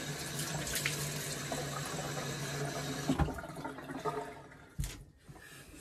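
Bathroom washbasin tap running while hands splash water onto the face. The running water thins out after about three seconds, with a couple of louder splashes, and stops about five seconds in.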